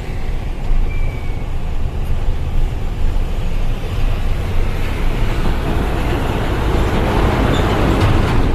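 Hino Ranger dump truck on the road: a steady low diesel engine and road rumble, with a broad rush of noise swelling from about six seconds in and strongest near the end.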